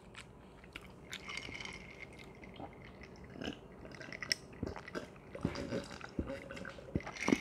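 A man drinking an iced cola from a glass: soft swallowing with scattered small clicks of ice against the glass.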